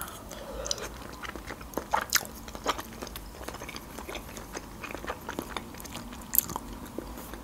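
Person chewing a mouthful of boiled pelmeni with sour cream, close to the microphone: soft, wet mouth clicks and smacks, with a few sharper clicks.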